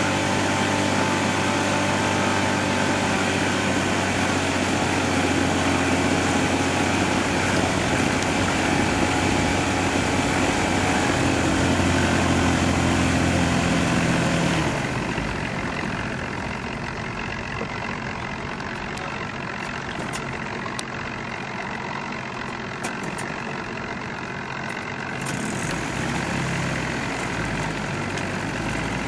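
Honda 8 hp four-stroke outboard motor idling steadily while it warms up after a couple of months unused. It sounds fainter and duller for about ten seconds from roughly halfway in, then fuller again near the end.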